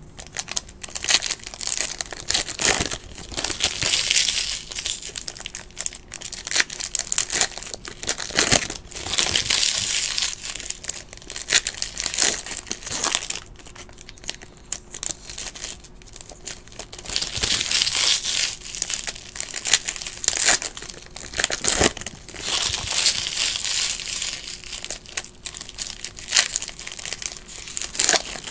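Foil trading-card pack wrappers crinkling and rustling in the hands, in irregular bursts with sharp crackles, as 2017 Bowman Chrome packs are handled and opened.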